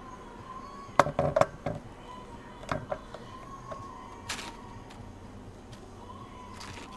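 A metal ladle clinking and knocking against a stainless steel pan and plate as thick cheesy ground-beef dip is scooped out and spooned onto tortilla chips: a quick cluster of sharp knocks about a second in, then single knocks near three and four seconds.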